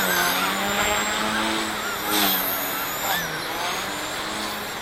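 XK K130 RC helicopter running on a 3D-printed main gear: a high electric motor whine over the rotor's buzz, the pitch drifting up and down as the throttle changes in flight.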